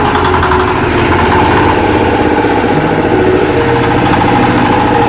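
Small single-cylinder Chinese diesel engine running steadily, test-run after a piston ring job.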